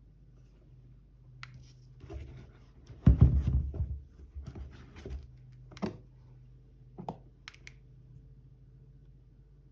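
Handling noise: scattered clicks and taps, with a louder low bump and rustle about three seconds in, over a low steady hum.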